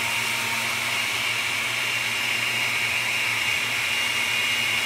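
Countertop blender running steadily on its milkshake setting, blending banana, yogurt and milk. The motor gives a constant high whine over a low hum.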